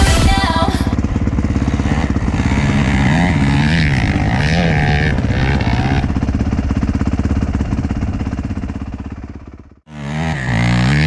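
Four-stroke single-cylinder dirt bike engine running hard, its pitch rising and falling as the throttle is worked, then fading away; the sound cuts off abruptly and another dirt bike engine starts up near the end.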